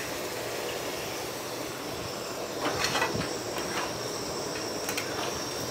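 Mutton curry masala cooking in a metal kadhai, with a steady hiss just after a splash of water is added. A metal spatula scrapes the pan a few times around three seconds in and once near the end as the curry is stirred.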